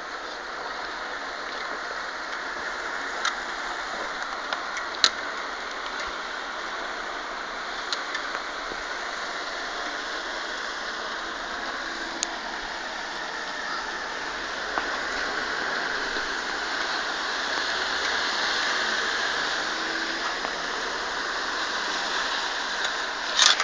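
Steady hiss of rain falling, swelling a little past the middle, with a few sharp ticks now and then.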